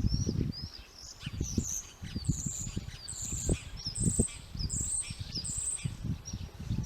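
Small birds chirping and singing in a quick run of short, high calls, with irregular low rumbling and thumps underneath.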